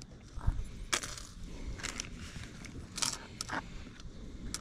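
Small metal double hooks clicking and rattling in a plastic tackle-box compartment as fingers pick through them, with several sharp clicks about a second apart.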